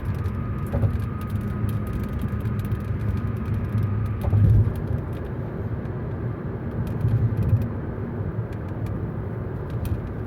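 Steady low road and engine rumble inside a moving car's cabin, swelling briefly a couple of times, with many faint scattered ticks over it.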